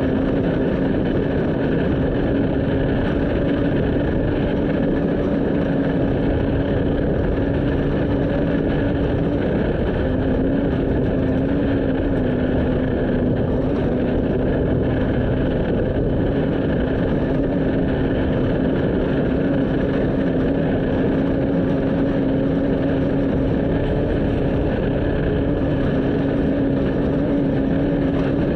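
A motor vehicle driving at a steady speed: an even engine drone over dense road and wind noise, with one brief break in the drone about a third of the way in.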